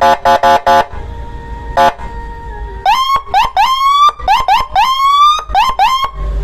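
Landun 60-watt electronic siren played through a TOA 15-watt horn speaker: four quick short horn blasts and one more, then from about three seconds in a string of rapid rising whoops, two of them drawn out longer, cutting off near the end.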